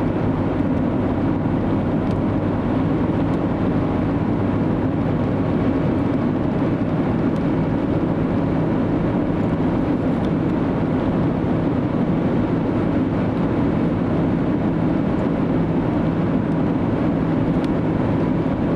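A vehicle on the road, its road and engine noise a steady low drone.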